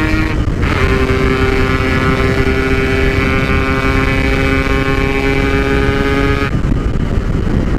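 Two-stroke motorcycle engine with a Packing Power PK1 exhaust, running at steady revs while riding. The note shifts in pitch just under a second in, holds steady, and gives way to a rougher, less tonal sound about six and a half seconds in.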